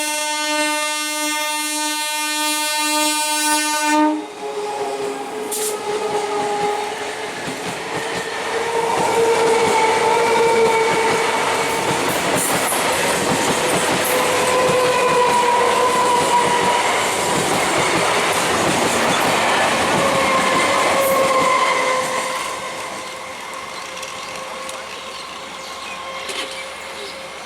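An EMU local train's horn sounds a steady blast that cuts off sharply about four seconds in. The train then runs past with rattling wheels and a wavering whine, dropping away about 22 seconds in.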